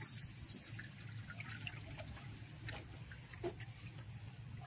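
Faint trickling and dripping of floodwater, with scattered small drips over a low steady hum.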